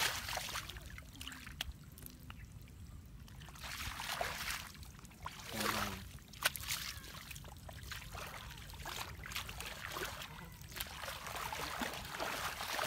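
Shallow muddy water sloshing and splashing irregularly as bare feet wade and hands grope in the mud for fish.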